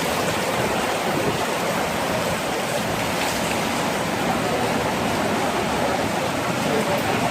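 Steady downpour of rain, an even rushing hiss with faint scattered drop ticks.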